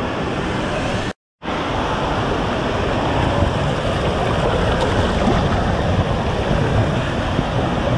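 Water rushing and splashing down an indoor tube water slide as a rider in an inner tube slides through it. The sound cuts out completely for a moment about a second in.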